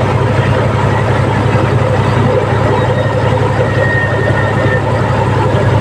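Compact excavator's diesel engine running steadily at an even pitch.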